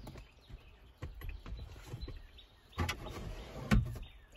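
Handling noise as the stock rubber steering wheel is worked off the steering column and moved: scattered clicks, rubs and knocks, with one sharper knock nearly four seconds in.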